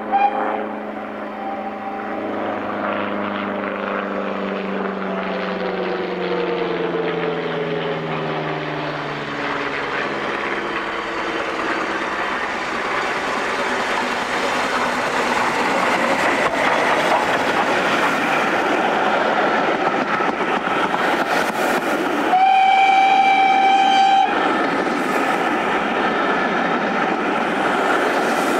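BR Standard Class 4 4-6-0 steam locomotive working a train, its exhaust and running gear growing louder as it approaches and passes, followed by the carriages rolling by with wheel clatter. Its whistle sounds once, for about two seconds, near the end.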